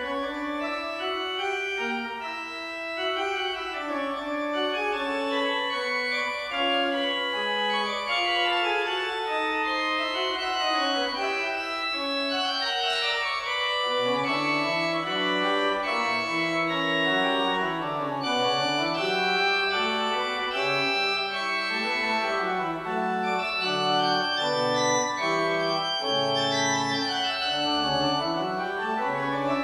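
Organ playing several quick-moving lines over held notes, with lower bass notes joining about halfway through.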